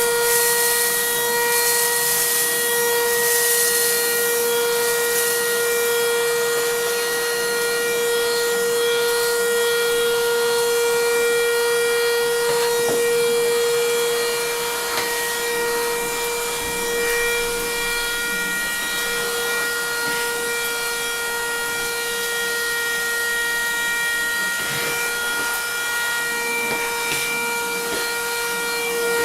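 Handheld YD610 wet-and-dry car vacuum cleaner running off a 3-cell LiPo battery: a steady, high-pitched motor whine with a hiss of rushing air, dropping slightly in level about halfway through.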